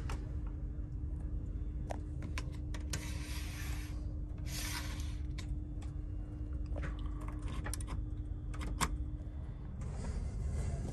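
Steady low rumble and a constant hum inside a TGV inOui train carriage, with scattered clicks and two short scraping slides about three and four and a half seconds in, from the seat-side fittings being handled.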